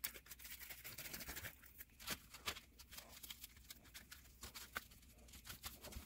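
Faint, scattered small clicks and rustles of hands handling and pressing foam pieces into place.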